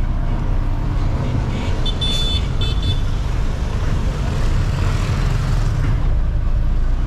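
Trailer truck's diesel engine running under way, a steady low rumble heard from inside the cab. About two seconds in, a horn beeps twice briefly.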